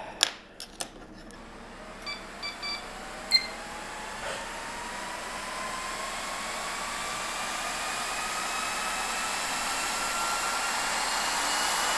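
Rack-mount server chassis fans spinning up at power-on: a whine that rises slowly in pitch over rushing air, growing steadily louder. A few short beeps come about two to three seconds in.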